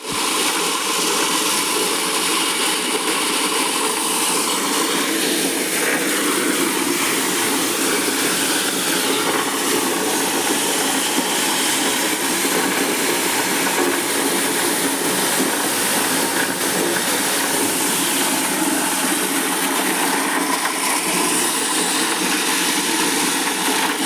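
Maize sheller machine running steadily: a constant, even mechanical din with no pauses.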